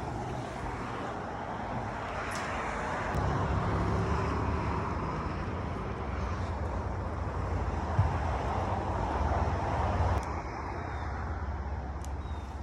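Engine running steadily under a broad rushing noise. Its low hum grows stronger about three seconds in and drops back a little after ten seconds.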